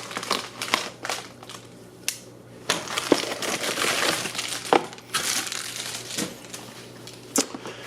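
A cardboard product box being opened by hand and its packaging handled: irregular rustling and crinkling with scattered clicks and taps.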